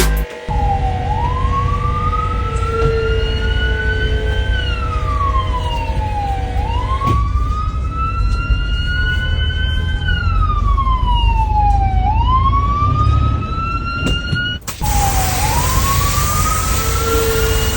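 A wailing siren whose pitch rises slowly and then falls, about every five and a half seconds, over a heavy low rumble. The sound breaks off abruptly twice, about seven and fifteen seconds in.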